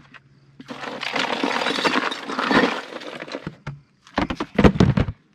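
Rummaging among ice and drink bottles: a long crackling scrape, then a quick run of sharp clinks near the end as a glass bottle is pulled out.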